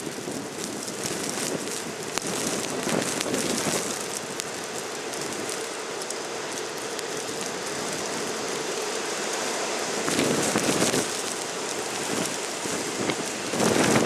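Blizzard wind driving snow across a street: a steady hiss, with gusts buffeting the microphone about ten seconds in and again near the end.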